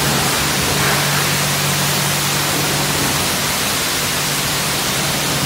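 Steady hiss of water spraying from a self-serve car wash's high-pressure wand, with a steady low machine hum underneath.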